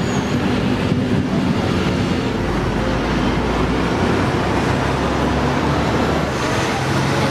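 Steady city street traffic: a constant wash of passing vehicles with engines running, and a deeper rumble swelling briefly a few seconds in.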